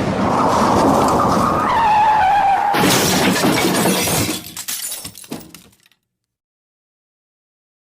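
Car crash sound effect: tyres screeching, the squeal dropping in pitch about two seconds in, then a loud crash about three seconds in with breaking glass and debris clattering. It dies away over the next few seconds into silence.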